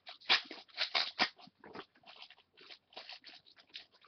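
Irregular crinkling and clicking of plastic being handled close to the microphone, busiest in the first second and a half.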